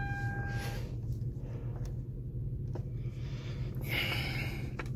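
Car engine idling, heard from inside the cabin as a steady low hum. A short beep sounds right at the start, and a brief hiss comes about four seconds in, with a few faint clicks.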